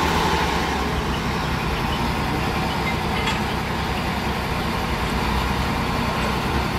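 Heavy diesel engine of a railway track machine running steadily, with a constant low hum and no change in pitch.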